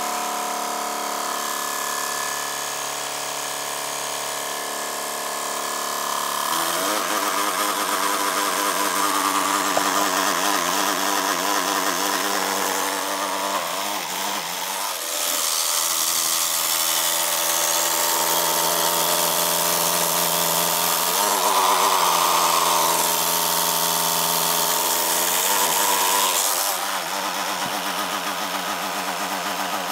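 MSI GP66 Leopard laptop cooling fan running with a loud whine and grinding, stepping up in pitch and loudness a few times, with a harsher rough noise through the latter half that eases near the end. The uploader takes it for a faulty right fan, perhaps with loose blades, that jams.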